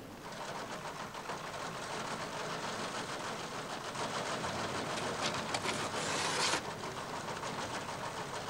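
Teleprinters clattering: a fast, steady run of mechanical type strikes. A louder stretch near the end cuts off abruptly about six and a half seconds in.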